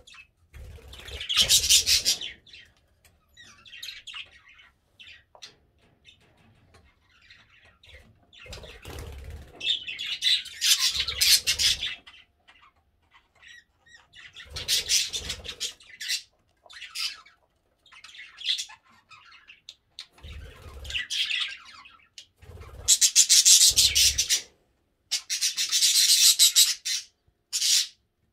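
Flock of budgerigars chattering and warbling in irregular bursts of a second or more, with short pauses between; the loudest chatter comes near the end.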